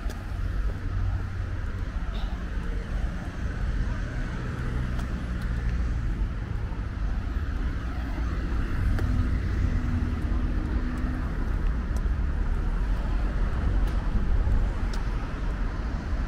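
City street traffic: cars running along the road with a steady low engine rumble and tyre noise.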